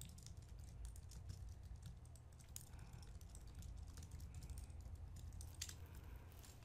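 Computer keyboard typing: a quick, uneven run of faint keystrokes as a sentence is typed out.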